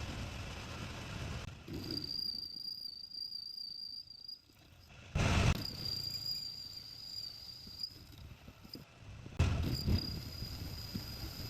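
Metal lathe turning a forged steel dumbbell weight: a steady high-pitched whine from the cut, heard in stretches, interrupted twice by a short loud rush of noise, about five seconds in and again near the end.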